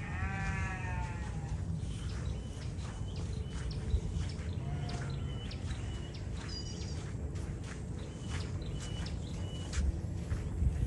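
A farm animal bleating once, a long wavering call in the first second, followed by scattered short high chirps over a steady low background hum.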